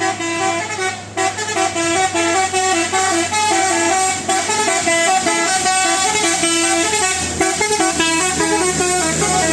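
Basuri 'telolet' multi-tone bus horn playing a quick tune of short pitched notes over a low steady hum.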